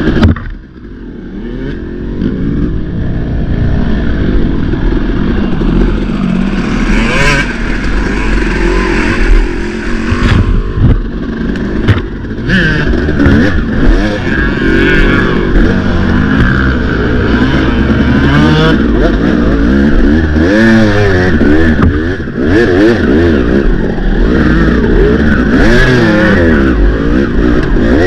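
Off-road racing engine under hard, constantly changing throttle, its pitch rising and falling over and over. It drops off sharply right at the start, then builds back up.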